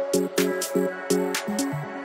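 Background electronic dance music with a steady beat: short, repeated synth chords over sharp hi-hat strikes.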